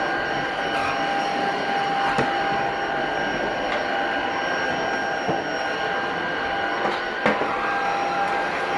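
Tocmoc T230 cordless stick vacuum running steadily on its low speed setting, its motor giving a high whine over the rush of air as it works across a carpet. A single sharp click sounds about seven seconds in.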